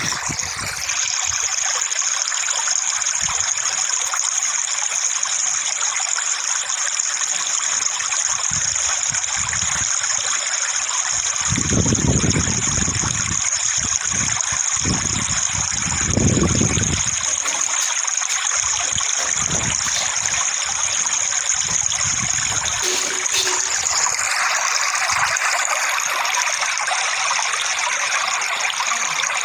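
Running water, a steady rushing and trickling like a stream, with two louder low swells about twelve and sixteen seconds in.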